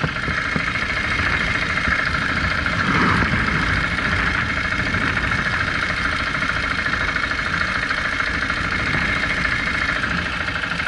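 KTM 690 Enduro R's single-cylinder four-stroke engine idling steadily.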